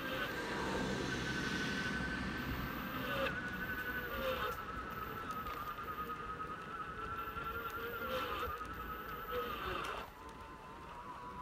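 Wheelchair trike's drive motor whining as it rides along a tarmac path, with tyre rumble beneath. The whine's pitch drifts slowly lower, then drops and quietens near the end.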